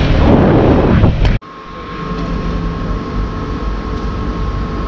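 Loud riding noise from a motor scooter on the move, cut off abruptly about a second and a half in. Then a steady, quieter hum with a faint steady whine as a petrol pump dispenses fuel into the scooter's tank.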